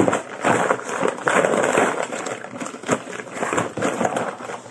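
Gift wrapping paper and tissue paper rustling and crinkling as they are pulled off and crumpled by hand, an uneven run of crackly rustles.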